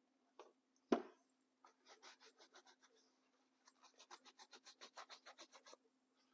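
Paper towel soaked in isopropyl alcohol scrubbed back and forth over a boot's rubber sole, faint quick rubbing strokes about six a second in two runs, after a knock about a second in. The sole is being cleaned of dust and grime to take epoxy.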